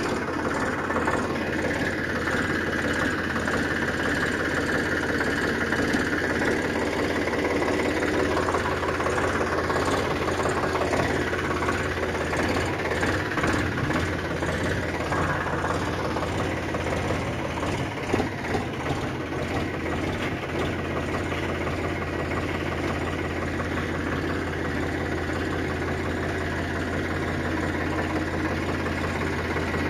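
An engine idling at a steady, even pace, with a low hum and no revving.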